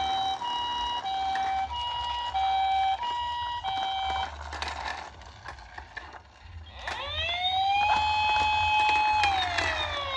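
Electronic siren of a toy ambulance: a two-tone hi-lo siren alternating between two notes for about four seconds, then a short lull with a few small clicks, then a wailing siren that rises, holds, and starts to fall near the end.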